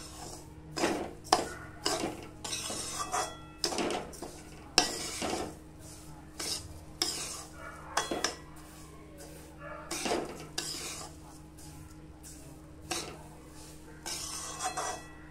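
Metal spoon scraping and stirring a dry, grainy mix of roasted semolina, sugar and milk powder around a stainless steel kadhai, in irregular strokes about once a second. A steady low hum runs underneath.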